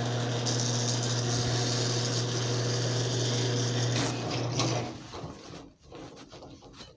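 Craftsman garage door opener's motor running with the door disconnected, driving the trolley along the rail with a steady mechanical hum and rattle. It stops about four and a half seconds in.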